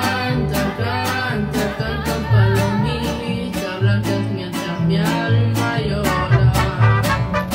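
Mariachi ensemble playing: a woman singing with a wide vibrato over steadily strummed vihuela and guitar, a deep plucked guitarrón bass line and trumpets.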